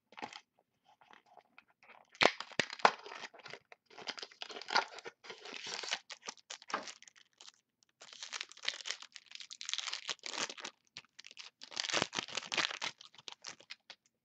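A trading card pack wrapper being torn open and crinkled as the cards are handled, in irregular crackling bursts that are loudest about two seconds in and again about twelve seconds in.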